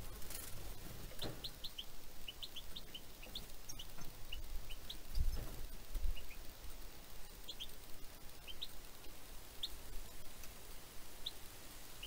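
Small songbirds giving short, high, thin chirps, scattered irregularly throughout, with a couple of low bumps about five seconds in.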